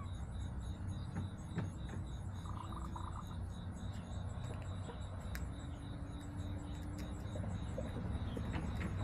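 Backyard chicken-run ambience: a steady high insect trill, typical of crickets, over a constant low hum. A short chirping trill comes about two and a half seconds in, with soft, drawn-out low hen calls and a few light clicks.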